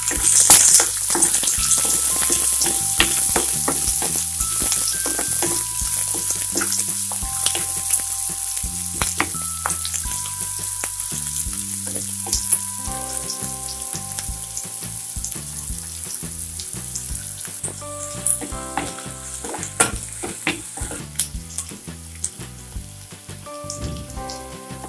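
Chopped onions and green chillies sizzling in hot oil in a non-stick kadai, frying until they brown, stirred with a wooden spatula that scrapes and taps the pan. The sizzle is strongest at the start and gradually dies down.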